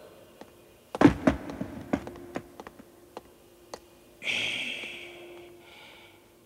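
Animation sound effects: a sharp knock about a second in, then a run of lighter taps that die away, and a hiss lasting about a second near the end, over a faint steady hum.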